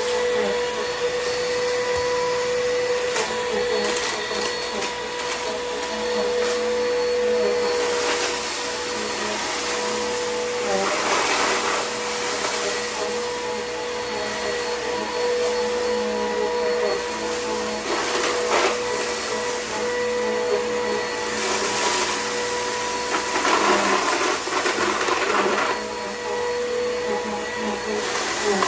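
Vacuum cleaner running steadily on a rug with a high motor whine. Louder stretches of hissing rattle come and go as crushed food crumbs are sucked up.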